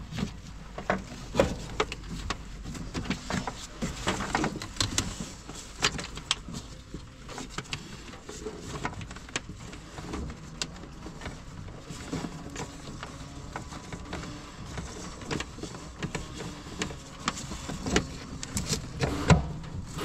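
Irregular clicks, taps and light clatter of hands and tools working on a vehicle while a fuel hose is routed.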